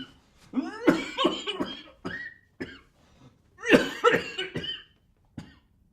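A man coughing in a fit: a run of harsh coughs, a second loud run about three and a half seconds in, and one last short cough near the end.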